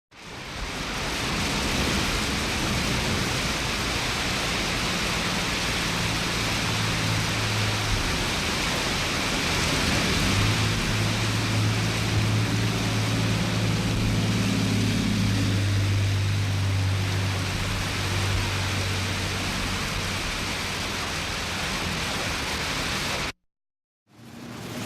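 Steady rain falling, fading in at the start and cutting off abruptly about a second before the end, with a low steady hum underneath for much of it.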